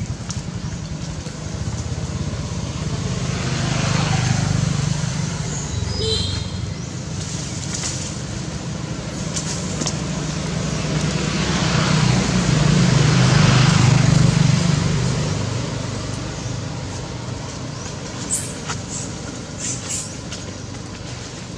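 Motor vehicles passing: a steady low engine hum with a rushing swell about four seconds in and a louder one from about twelve to fifteen seconds in, fading afterwards.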